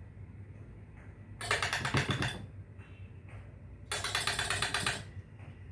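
Metal door-chain knocker rattled against a wooden front door: two bouts of rapid rattling, about a second each, the second about a second and a half after the first.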